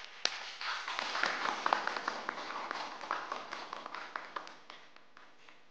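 A small group applauding, with individual hand claps standing out; the applause thins and dies away near the end.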